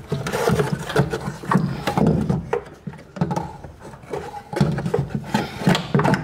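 Irregular metallic clinks and knocks of hand tools and suspension hardware being handled while a car's rear coilover is bolted in.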